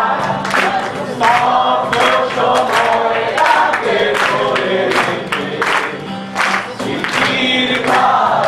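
Live acoustic performance: a man sings into a microphone over a strummed acoustic guitar and a steady beat of cajón hits.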